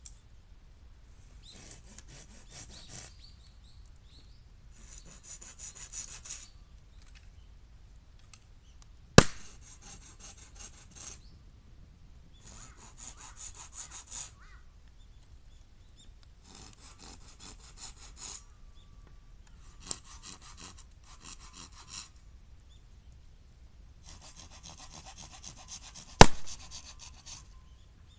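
Hand saw cutting bamboo in repeated spells of rasping strokes, each a second or two long with short pauses between. Two sharp cracks, about a third of the way in and near the end, are the loudest sounds.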